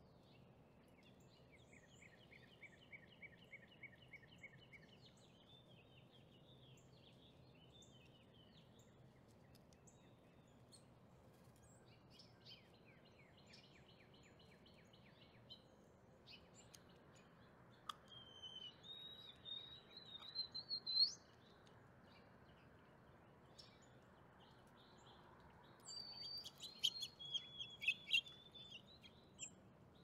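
Songbirds chirping and trilling faintly, with two louder bouts of rising calls about 18 and 26 seconds in.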